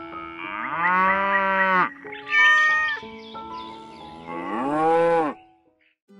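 Cow mooing and cat meowing, three long drawn-out calls about a second each, over soft background music that fades out near the end.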